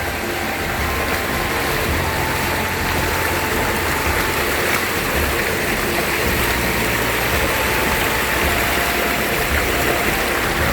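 Steady rush of fast-flowing river water and waterfalls, with an uneven low rumble underneath.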